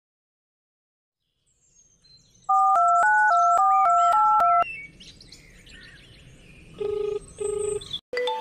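Smartphone dialing a number: a quick run of about ten two-tone DTMF keypad beeps. About two seconds later comes a ringback tone, two short beeps close together, as the call goes through. Birds chirp faintly in the background.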